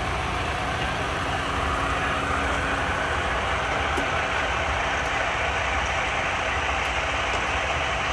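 Heavy truck's diesel engine idling steadily, a constant low rumble.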